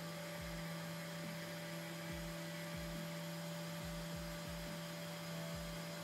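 Faint steady electrical hum with a few fixed tones, under soft low thuds that recur irregularly about twice a second.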